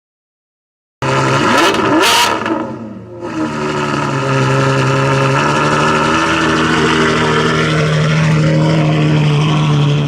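Ferrari supercar engine starting about a second in with a quick rev that climbs and drops back, with a couple of sharp cracks. It then runs steadily at an even, held pitch until it cuts off suddenly.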